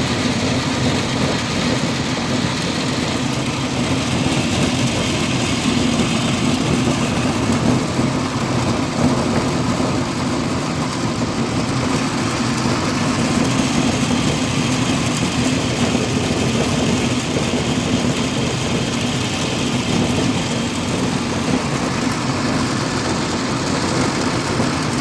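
Cattle feed mill machinery, the motors and pellet press of the feed plant, running steadily. It makes a loud, even hum with a strong low tone and a constant hiss over it.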